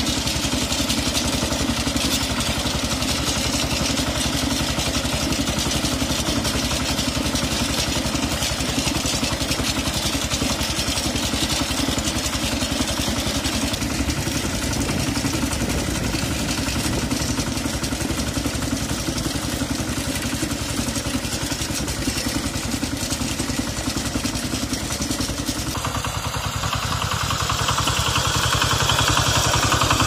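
A Kentavr MB 1010DE-6 walk-behind tractor's single-cylinder diesel engine runs steadily as the machine drives along a frozen, snow-covered track. About 26 seconds in, the sound changes abruptly and turns a little louder and brighter.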